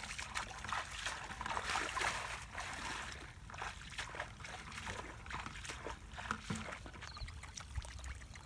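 Feet wading through a shallow, muddy canal: an irregular run of splashes and sloshes from steps in ankle-deep water.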